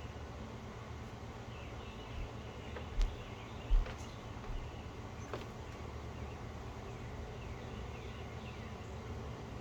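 Birds chirping faintly in short, falling notes over a steady low rumble, with two dull thumps about three and nearly four seconds in.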